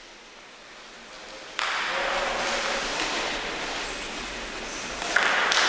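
Table tennis ball clicking sharply off bat and table a couple of times near the end, as a serve starts a rally. A steady hiss starts suddenly about one and a half seconds in and runs under it.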